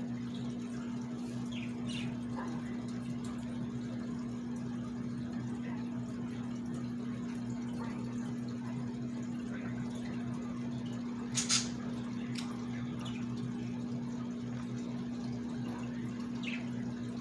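A steady low hum with an even rushing noise under it, and a few faint short high sounds, one louder and sharp about eleven seconds in.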